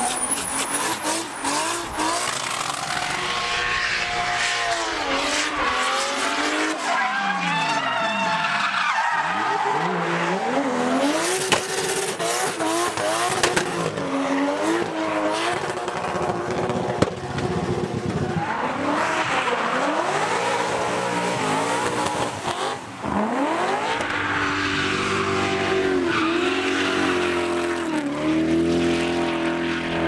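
Drift cars' engines revving up and down hard under full throttle, over the hiss and squeal of tyres sliding sideways. Twice a car passes close, its engine pitch falling steeply as it goes by.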